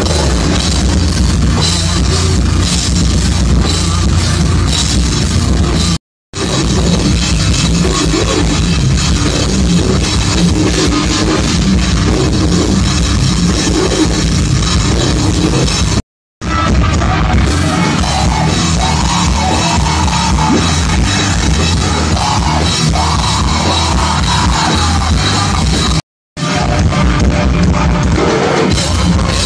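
Live metal band playing loud, with drums and distorted electric guitar filling the sound. Short gaps of silence break it near 6, 16 and 26 seconds in.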